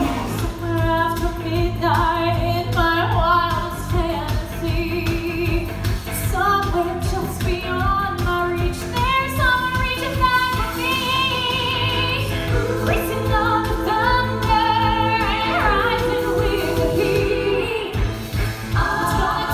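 A woman singing a song over instrumental accompaniment, with long held notes that waver in vibrato.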